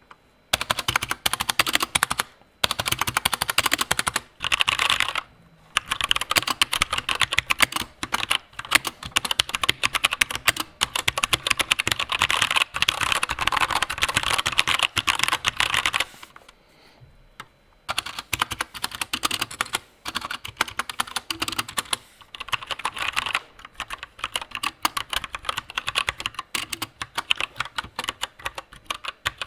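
Fast typing on an Anne Pro 60% mechanical keyboard with stock Gateron Brown tactile switches: dense, rapid key clacks, broken by short pauses and one longer pause about sixteen seconds in.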